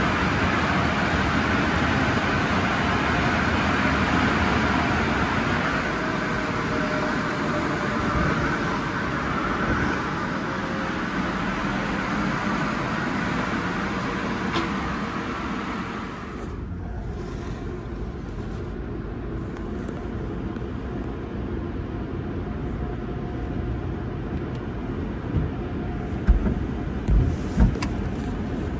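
Tunnel car wash equipment running: a steady loud rush of air and machinery, then about halfway through it cuts to the duller sound of water spray and spinning brushes heard from inside a car's cabin in the foam bath, with a few thumps near the end as the brushes hit the car.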